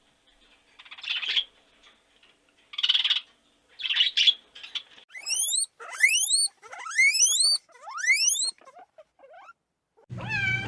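An animal calling: three short raspy bursts, then a run of quick rising squeaks.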